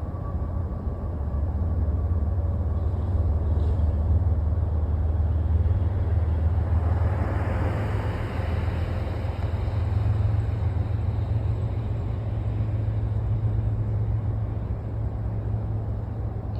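Unidentified machine running out of sight, a steady low droning hum with a rushing noise over it that swells louder about halfway through.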